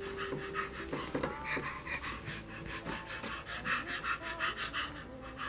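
A baby's quick, excited panting breaths over soft background music with held notes.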